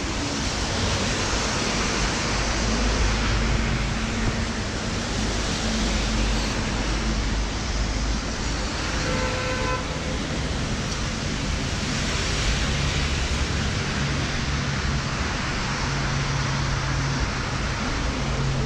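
Rain drumming on a clear plastic umbrella canopy overhead makes a steady hiss, with low city traffic rumbling underneath. A short vehicle horn toot sounds about nine seconds in.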